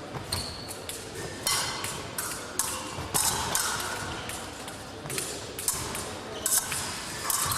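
Épée blades clicking and clashing against each other in an irregular run of sharp metallic ticks, mixed with the thumps of fencers' feet stamping during the bout.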